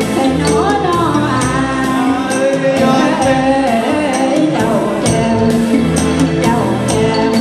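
Band music with a singing voice over a steady percussion beat.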